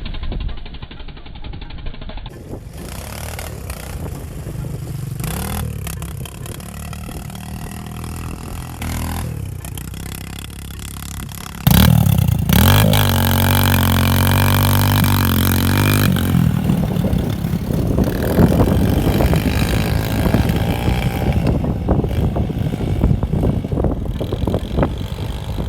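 Off-road vehicle engines running and revving, with a louder stretch of close, hard engine noise from about halfway in that lasts a few seconds.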